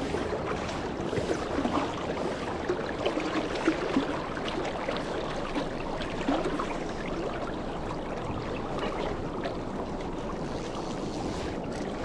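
Stream water flowing steadily, a constant rushing with small gurgles and splashes scattered through it.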